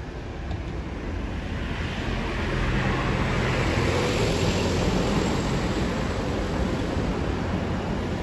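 Airliner engine noise swelling as the aircraft passes, loudest around the middle and easing off slightly toward the end.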